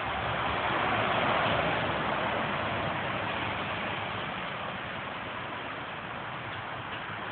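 Road traffic passing on the busy road over the underpass: a steady rush of tyre noise that swells about a second in and then eases off.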